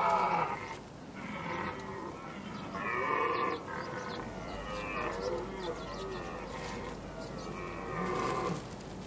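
Red deer stags roaring in the rut, several drawn-out calls one after another with a second or two between them.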